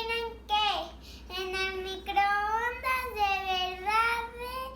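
A young girl singing a short tune in several phrases, with held notes that glide up and down and brief pauses between them.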